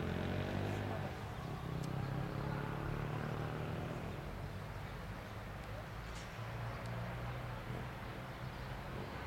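A motor vehicle's engine droning low, loudest over the first few seconds and then fading away, with two faint knocks.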